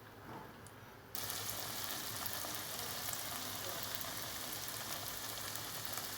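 Breaded chicken schnitzel sizzling as it shallow-fries in hot oil in a pan. The sizzle starts suddenly about a second in and then holds steady.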